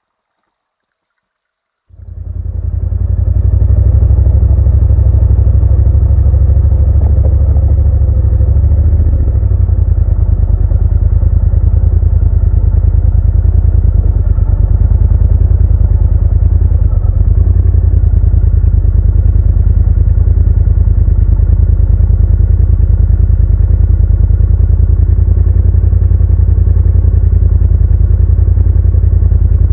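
Motorcycle engine running steadily at idle, loud and close, coming in about two seconds in.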